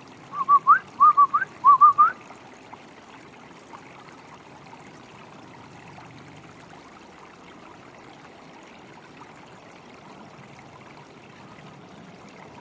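A person whistling three short loud phrases, each ending in a quick upward glide, as a call, over the steady sound of a running stream.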